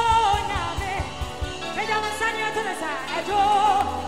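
Live gospel worship band music: a woman's voice holds long notes with a wavering vibrato, sliding between pitches, over bass, keyboard and electric guitar, with drum hits in the first second and a half.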